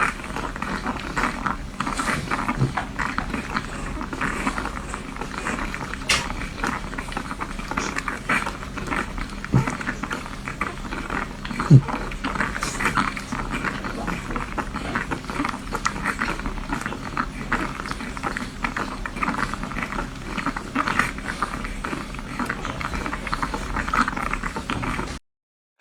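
Newborn French Bulldog puppies suckling: a continuous stream of quick wet smacking and clicking sounds with the odd small squeak. The sound drops out for a moment near the end.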